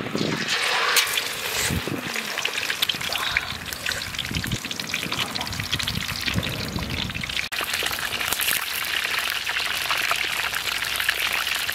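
A whole fish sizzling and crackling in hot oil in a wok. The sizzle starts sharply as the fish goes into the oil, then runs on densely and steadily.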